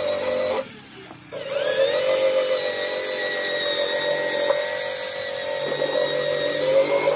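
Electric rotary tool spinning a rubber decal-eraser wheel against painted car bodywork, a steady high-pitched whine as the wheel rubs off old decal adhesive. It drops out briefly about half a second in, then spins back up with a rising whine and runs steadily until it cuts off at the end.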